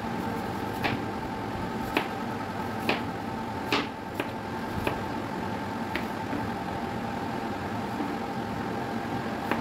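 Kitchen knife cutting a peeled apple on a cutting board, the blade knocking sharply against the board about once a second, seven times, stopping about six seconds in. A steady hum runs underneath.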